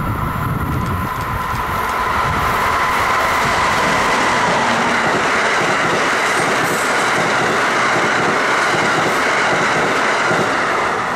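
Amtrak Northeast Regional passenger train passing through at speed, its steel wheels running on the rails. The sound builds over the first couple of seconds, holds steady and loud, then starts to fade as the last car clears near the end.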